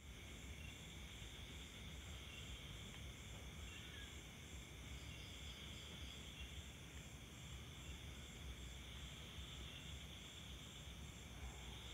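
Faint steady chirring of insects, with an evenly pulsing high trill over a low background hum.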